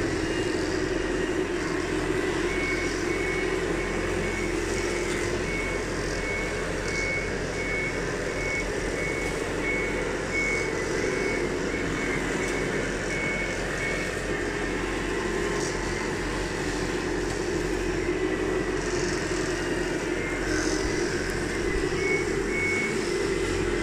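Reversing beeper from an RC construction model's sound module, beeping steadily about twice a second for some ten seconds and again briefly near the end, over a steady engine-like drone.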